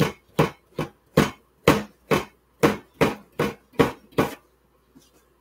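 Kitchen knife chopping papaya on a cutting board: a steady run of sharp knocks, about two to three a second, that stops a little after four seconds in.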